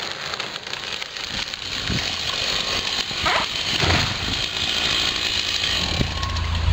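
Chainsaw running steadily, with a dog barking faintly twice near the middle.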